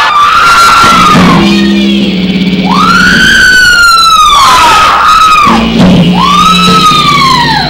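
Loud recorded dance music for a stage routine: a pitched tone that swoops up and then slowly falls, about three long swoops, over a steady low hum.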